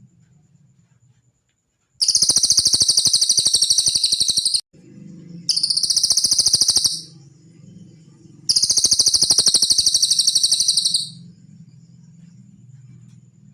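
Cililin song from a masteran recording: three long, very rapid high trills, each one to two and a half seconds long, with short gaps between them. Under them run a faint steady high whine and a low hum.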